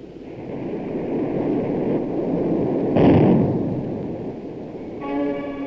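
Aircraft engines roaring and swelling, with a sudden loud blast about three seconds in that fades away. A short buzzing tone sounds near the end before the sound cuts off abruptly.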